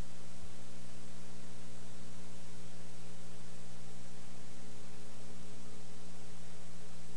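Steady electrical mains hum with hiss from a VHS tape's silent stretch, playing on without change.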